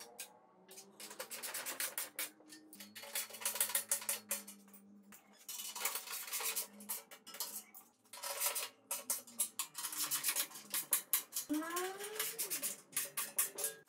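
Irregular metallic clinks and taps of laser-cut quarter-inch steel plate parts being knocked into their slots, over background music.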